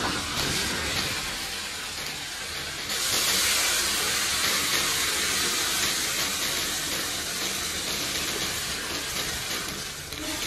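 Pig trotters sizzling in a flaming hot wok after a splash of yellow rice wine. A few seconds in, water poured into the hot wok hisses loudly with steam, settling toward a boil near the end.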